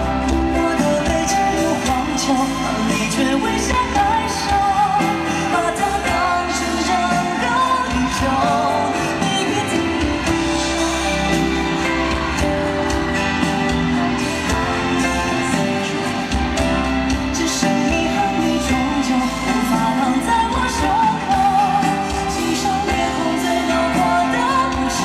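Live pop song played through a stadium sound system: a high male voice sings over a full band accompaniment.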